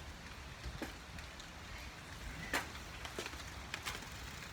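Rain outdoors: a steady low rumble with scattered sharp ticks, the loudest about two and a half seconds in.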